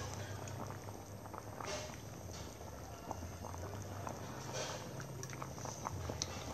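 Pot of chicken soup at a rolling boil on a portable gas stove: steady bubbling with many small pops and occasional hissy swells, over a steady low hum.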